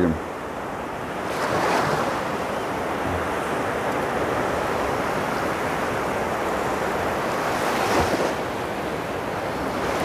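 Small sea waves breaking and washing over the shallows: a steady rush of surf that swells a little about two seconds in and again near the end.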